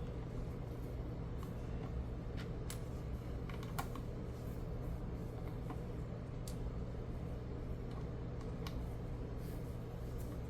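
Sparse light clicks of plastic LEGO pieces being handled and pressed together, over a steady low hum.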